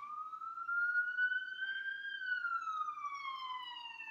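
Emergency vehicle siren wailing: one slow rise in pitch over about two seconds, then a slow fall.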